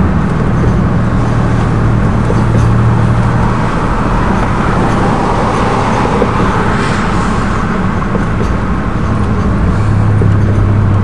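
Car driving, heard from inside the cabin: steady road and tyre noise under a low engine hum, the hum's pitch shifting slightly near the end.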